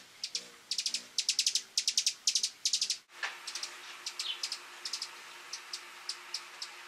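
Hummingbirds at a nest with chicks: very high-pitched chips and twitters in rapid bursts for the first three seconds, then after a short break sparser single chips spaced a fraction of a second apart.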